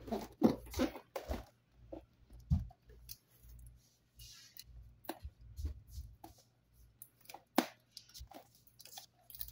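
Cardboard packaging being handled: scattered taps, scrapes and rustles as the soundbar's long inner carton is pulled out and fingernails pick at a sealing sticker on it.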